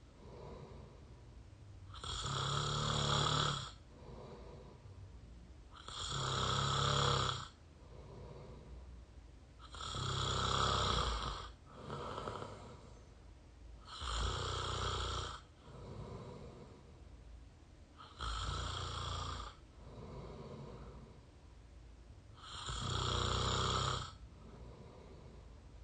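A person snoring through an open mouth, close to the microphone. Six loud snores come about four seconds apart, each lasting about a second and a half, with a softer breath between each pair.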